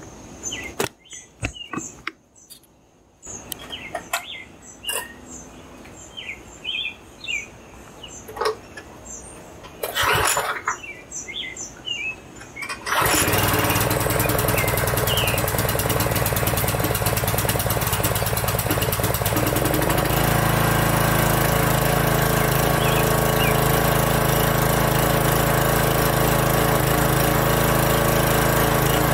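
Pressure washer starting abruptly about halfway through, then running loud and steady while it pumps water into a water-filled air tank for a hydrostatic pressure test. Its low note strengthens and shifts about seven seconds after it starts. Before it starts there are scattered knocks and clicks of handling, with birds chirping.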